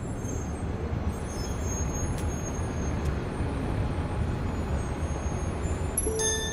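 Steady low rumble of street ambience, like distant traffic. Near the end a held music tone comes in.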